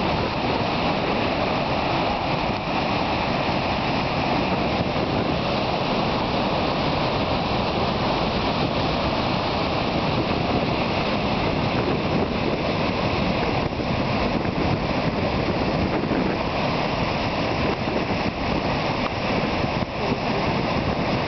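Niagara Falls pouring over its crest: a steady, unbroken rush of falling water.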